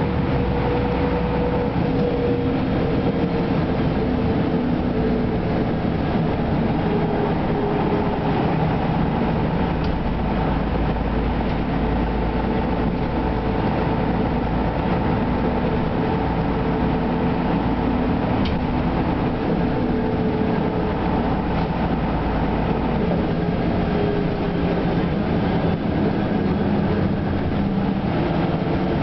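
Ikarus 260 city bus heard from inside the passenger cabin while driving: steady diesel engine drone over road and body noise. The engine's pitch drifts gently up and down with speed.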